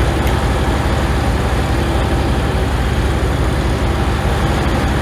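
Tractor engine running steadily just after a cold start, freshly jump-started because the cold batteries couldn't crank it over fast enough.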